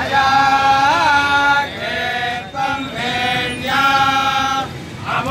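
Male voices chanting Vedic Sanskrit mantras, in long held notes with slight rises and falls in pitch and brief breaths between phrases.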